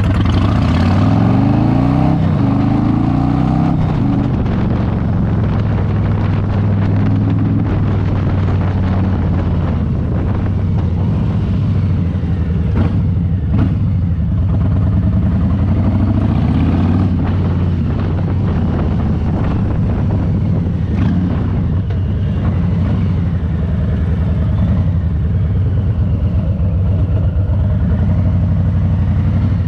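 Harley-Davidson Low Rider S Milwaukee-Eight 117 V-twin running on the road. It pulls up through the revs in the first few seconds and again about halfway, and otherwise holds steady low revs.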